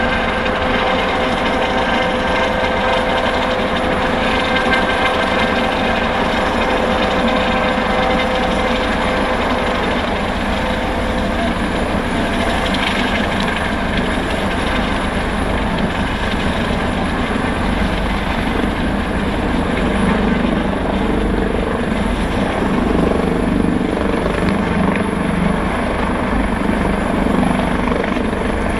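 Helicopter hovering and descending to land on a helideck, its rotor and engine noise loud and steady throughout. A steady whine in the noise fades out after about ten seconds, while the low rotor rumble grows stronger toward the touchdown.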